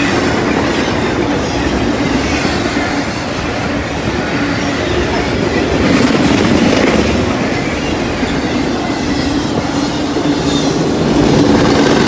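CSX intermodal freight train's double-stack container cars rolling past, a loud, steady noise of steel wheels running on the rails.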